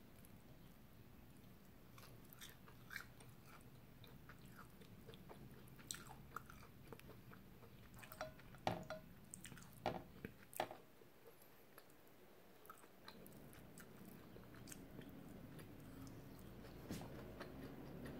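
Quiet close-up chewing of fried egg and toast: soft wet mouth sounds with scattered small clicks, and a few louder clicks about nine and ten seconds in.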